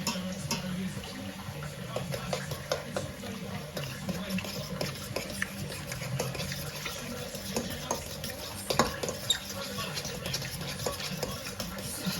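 Fork stirring a batter in a bowl: irregular light clicks and scrapes of the utensil against the bowl, with a sharper click about nine seconds in, over a steady low hum.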